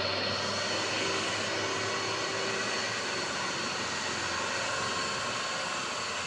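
Mitsubishi Colt Diesel truck's engine droning steadily as the loaded truck labours up a steep grade.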